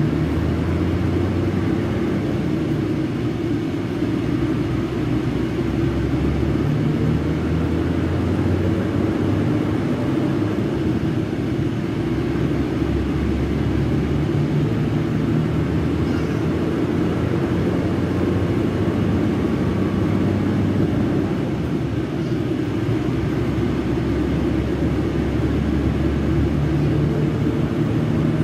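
Scania K380 bus's rear-mounted DC12 06 inline-six diesel engine running steadily, a deep rumble whose note shifts slightly now and then.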